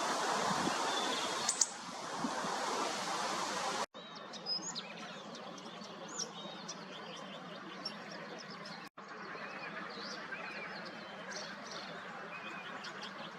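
Several wild birds chirping and calling with short, high notes over steady outdoor background noise. The first few seconds are covered by a louder even noise, and the sound cuts off sharply twice, at about four and nine seconds in.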